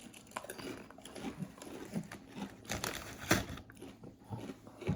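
A person chewing a mouthful of Rice Krispie treat close to the microphone: irregular crunchy clicks and mouth sounds, loudest a little after the middle.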